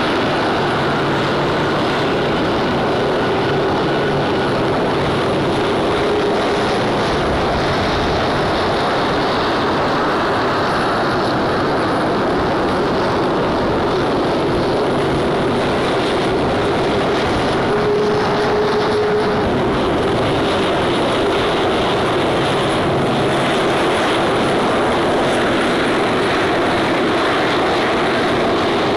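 KC-135R Stratotanker's CFM F108 turbofan engines running at taxi power: a steady jet noise with a thin, high whine over it.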